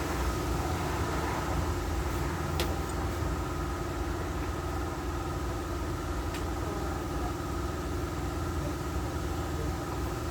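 Steady mechanical hum of a running machine, with two faint clicks, one about two and a half seconds in and one about six seconds in.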